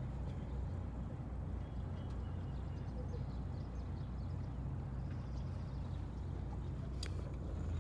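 Boat's engine running steadily at low speed, a low even hum, with one sharp click near the end.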